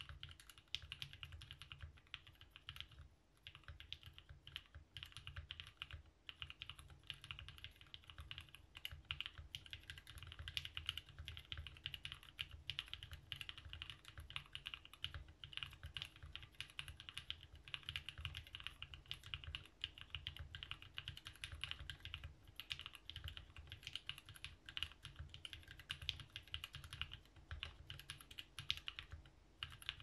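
Continuous fast typing on a Voice65 gasket-mount mechanical keyboard with lubed NovelKey x Kailh Cream switches, a polycarbonate plate and TKC Katakana keycaps: a dense, unbroken stream of key clacks.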